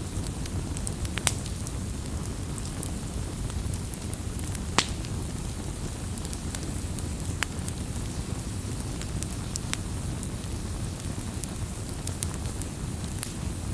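Firewood burning: a steady low rumble of flame with scattered crackles and sharp pops. The loudest pops come about a second in and again near five seconds in.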